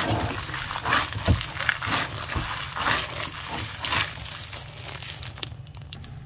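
Gloved hands squeezing and kneading raw minced meat with chopped onion, a wet squelching with plastic-glove crinkle about once a second, dying down near the end.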